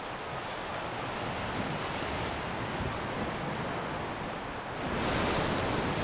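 Sea ambience: a steady rush of waves and wind, growing a little louder about five seconds in.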